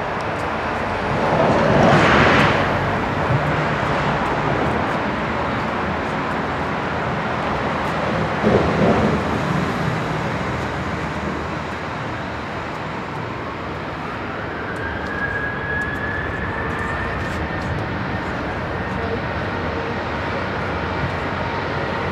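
Jet engines of a Boeing 737-800 (CFM56-7B turbofans) running as it taxis, a steady rushing noise with two louder surges in the first half. About halfway through, a whine rises in pitch and then holds steady.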